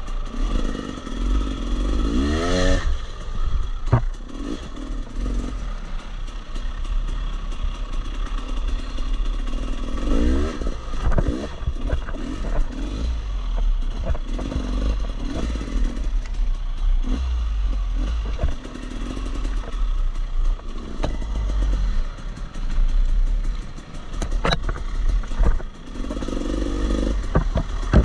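Husqvarna dirt bike engine running under load on a trail ride, revving up and falling back several times, with the bike clattering over rough ground and a few sharp knocks.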